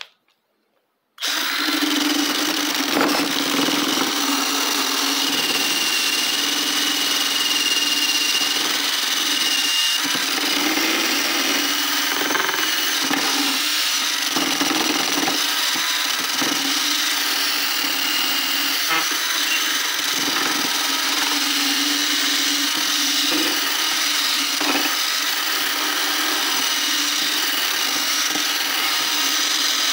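Cordless drill running steadily under load, spinning an ear of corn to grate its kernels, a motor hum over a dense grating hiss. It starts about a second in and does not let up.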